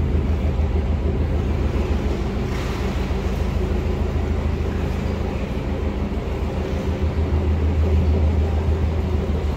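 Narrowboat's inboard diesel engine running steadily, a low, even hum.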